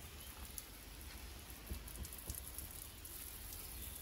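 Garden hose spray nozzle wetting down a stone wall: a steady hiss and patter of water spattering on the stonework.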